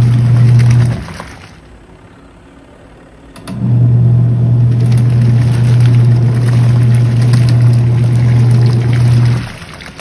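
Nova NTWM 800 twin-tub washing machine's wash motor humming steadily as the pulsator churns bedding in the water. It stops about a second in, starts again about two seconds later and stops again near the end: the wash cycle's run-and-pause agitation.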